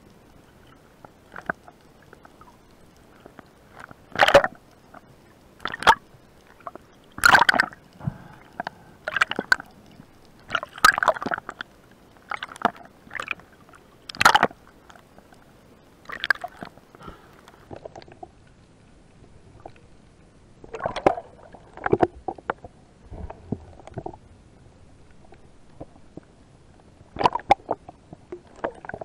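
Irregular bursts of water sloshing and gurgling recorded underwater, coming in short splashes every second or two with quieter gaps between, busiest early and again near the end.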